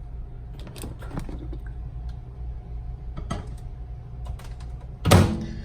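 Light clicks and knocks of a plastic egg steamer being handled and set inside a microwave oven, then a loud thud about five seconds in as the microwave door shuts, over a low steady hum.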